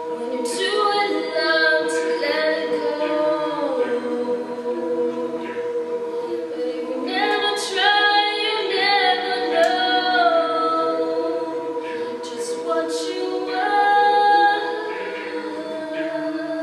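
A cappella vocal group singing: backing voices hold steady chords while a lead voice sings three phrases of melody over them.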